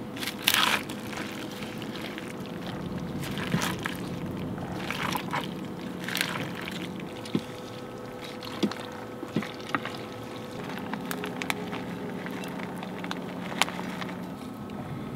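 A spoon stirring and scooping saucy pasta in a stainless steel Instant Pot insert: wet sloshing scrapes, with a few sharp clicks of the utensil against the pot. A steady low hum runs underneath.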